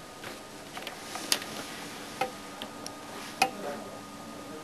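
Irregular sharp clicks and taps, the loudest three about a second apart, over a faint steady hum.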